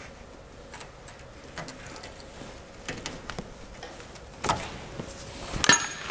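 Hand tools clicking and scraping against the hose clamps and metal transmission cooler lines while the hoses are worked off. There are scattered light clicks, then two sharper metallic clicks near the end, the last with a brief ring.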